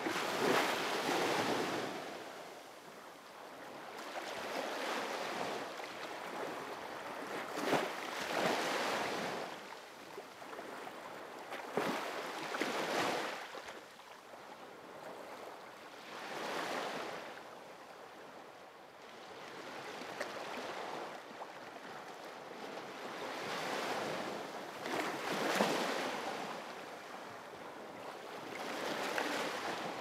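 Sea waves breaking and washing ashore, rising and falling in repeated surges every few seconds.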